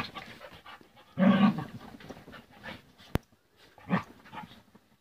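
A Yorkshire terrier puppy and a Norwegian elkhound play-fighting, with a loud burst of dog vocalising about a second in and a shorter one near four seconds. A single sharp click comes just after three seconds.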